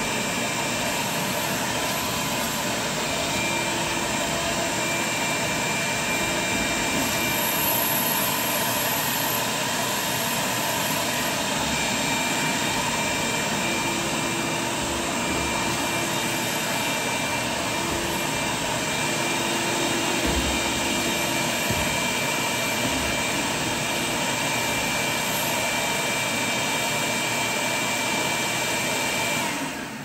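Ridgid 10-gallon stainless steel wet/dry shop vacuum running steadily with a faint high motor whine, then switched off at the very end.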